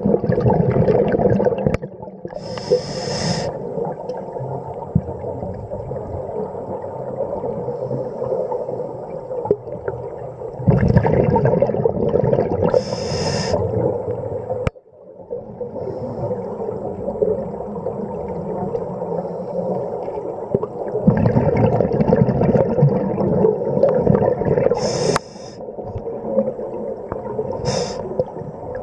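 Scuba diver breathing through a regulator underwater: about three slow breaths roughly ten seconds apart, each a short hiss of drawn air and a long rush of exhaled bubbles, over a steady background noise.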